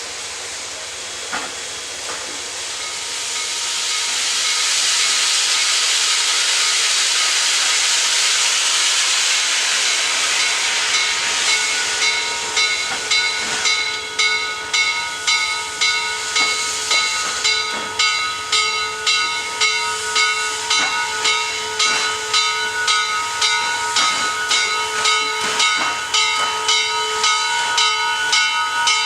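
Baldwin-built 2-6-6-2 Mallet steam locomotive 1309 working steam. A steady hiss of steam swells over the first few seconds, then regular exhaust chuffs set in, about one and a half a second, as the engine moves off under power.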